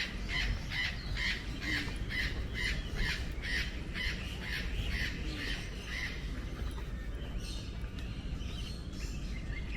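A bird calling over and over in short, evenly spaced notes, a little more than two a second, stopping about six seconds in.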